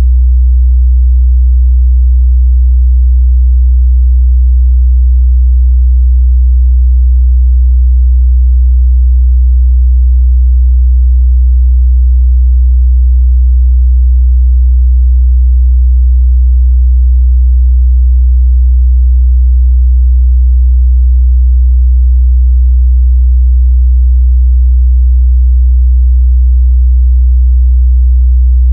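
A steady 62 Hz sine-wave test tone: a single continuous low bass hum at constant pitch and level, used to check a speaker's or headphone's mid-bass response.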